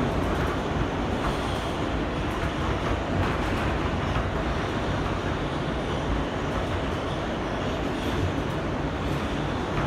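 Steady rumble of an R160B subway car's wheels on the rails, heard from inside the car as the train runs through a tunnel.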